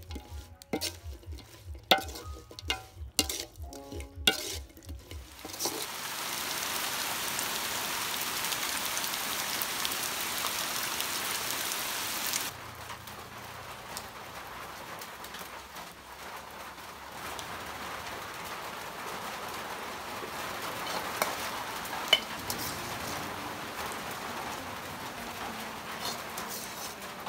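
Utensil clinks and knocks for the first few seconds, then hot oil begins to sizzle suddenly and loudly as food goes into the pan to fry. About halfway through the sizzle settles to a quieter steady frying.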